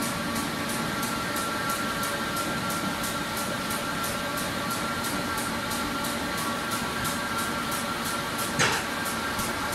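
1959 Will MZAK-Fa-H paper ruling machine running steadily, reel to sheet at 110 m/min, with a steady mechanical hum and a high, even ticking about three times a second. One brief, louder knock near the end.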